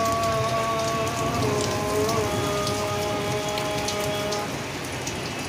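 Heavy storm rain pouring steadily, with scattered sharp drop hits. Faint music of long held notes runs underneath and stops about four and a half seconds in.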